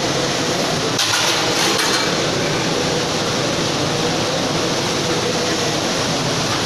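Steady loud rush of the Parvati River's fast-flowing water, with a brief brighter hiss about a second in.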